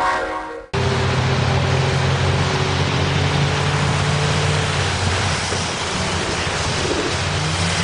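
A train horn fades out and cuts off within the first second. Then comes a steady hiss of rain and tyre spray from cars on a wet road, with a car engine humming, and a car passes close by about six seconds in.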